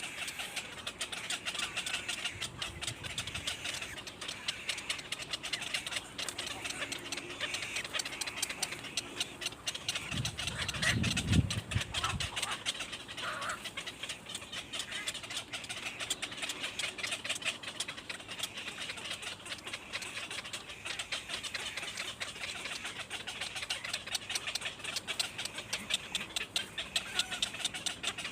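Birds chirping continuously in a dense, rapid chatter, with a brief low rumble about ten seconds in.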